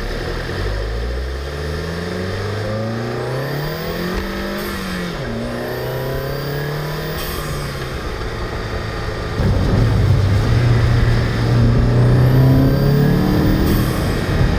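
Turbocharged four-cylinder engine of a stock VW GTI Mk7.5 accelerating. The pitch climbs for a few seconds and drops at a gear change, holds steady, then gets louder about two-thirds of the way in and climbs again near the end.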